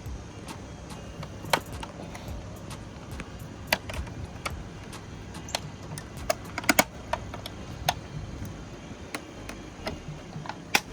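Plastic retaining clips clicking and snapping as a BMW F30's stock side-mirror cap is unclipped from the mirror housing: scattered sharp clicks, with a quick run of several about two-thirds of the way through.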